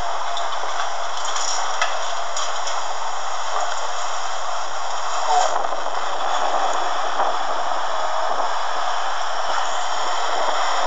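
Steady rushing noise with faint crackle, even throughout.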